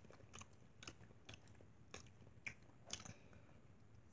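Faint chewing of fresh strawberries: soft wet mouth clicks, roughly every half second.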